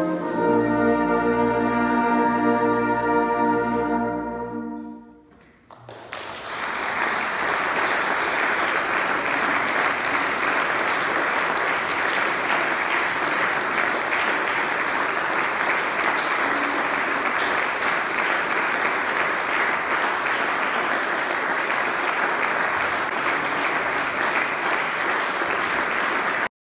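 Brass and wind band holding a final chord that dies away about five seconds in. After a short pause the audience applauds steadily, until the sound cuts off suddenly near the end.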